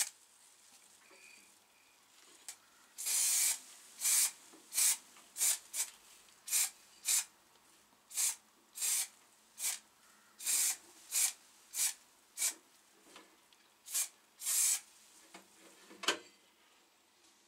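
Paint spraying in short hissing bursts, about one or two a second, starting about three seconds in, as small metal parts are coated glossy black.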